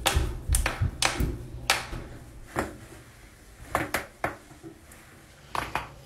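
Knuckles cracking as interlaced fingers are pushed outward: a quick run of sharp pops in the first couple of seconds, then more scattered pops, with a small cluster near the end.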